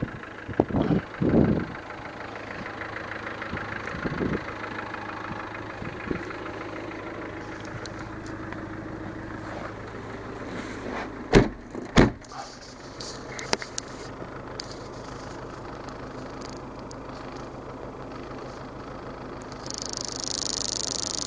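Land Rover Defender 300Tdi four-cylinder turbodiesel idling steadily. Two sharp, loud knocks come about half a second apart around the middle, and a steady hiss starts near the end.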